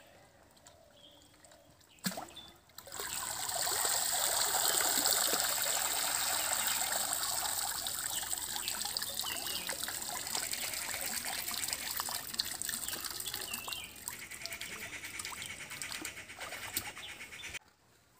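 Water pouring and splashing, starting about three seconds in and stopping abruptly near the end.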